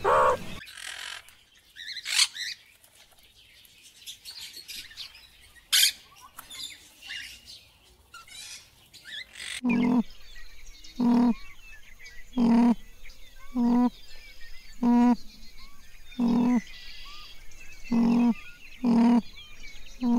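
Scattered bird chirps and whistles, then from about halfway an animal calling over and over: short, pitched calls about one every second and a half.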